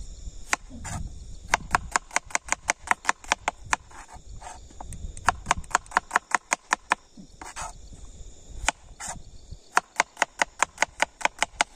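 Kitchen knife chopping vegetables, quick even strokes about five a second in three runs with short pauses between.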